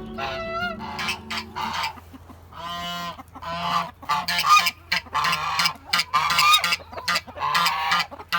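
Geese honking, many short calls one after another that grow busier and overlap from about halfway through.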